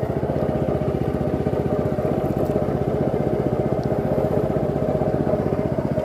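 Small single-cylinder boat engine running steadily at an even speed, driving a narrow wooden boat along a river.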